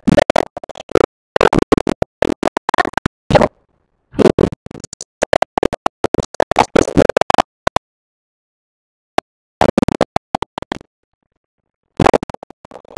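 A man's voice speaking, broken up by repeated audio dropouts. Short fragments of speech are cut off abruptly by stretches of dead silence, and there is a longer silent gap from about eight to twelve seconds in, interrupted only by a brief blip.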